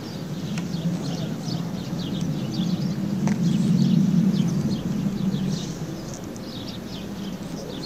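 Birds chirping over a steady low rumble that swells about halfway through and then eases off, with a few faint clicks.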